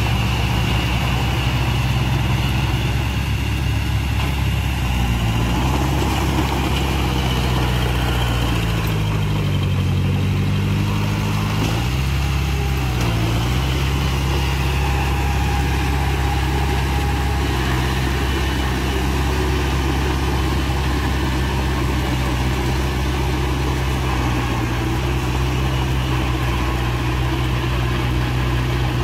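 Heavy diesel engine of an earthmoving machine running steadily. About ten seconds in its speed rises and dips a few times, then settles back to a steady run.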